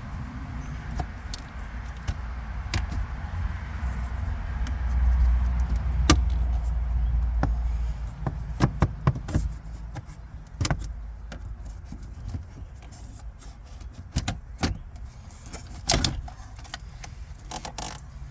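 Flathead screwdriver prying the plastic radio trim bezel off a 2001 Honda Civic's dash: scattered clicks, knocks and snaps as the metal blade works the clips loose, with a low rumble about a third of the way through.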